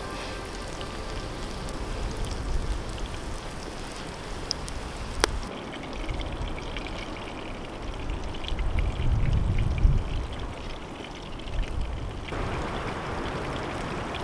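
Fish fillets sizzling and crackling in hot oil in a frying pan over a campfire. After about five seconds the sizzle gives way to a duller outdoor rumble.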